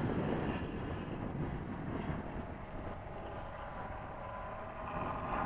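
Wind buffeting the microphone, with the droning simulated engine sound of the RC Cub's onboard sound module coming in about halfway through and growing clearer near the end.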